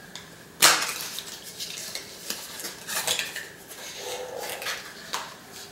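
Cardboard box of a plastic 4x4 puzzle cube being opened by hand: a run of sharp clicks and rustles as the flaps are worked and the cube is pulled out, the loudest click about half a second in.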